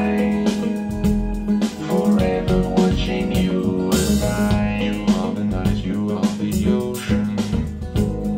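Recorded music playing through SVS Ultra Evolution Bookshelf loudspeakers: guitar and bass guitar over a steady beat.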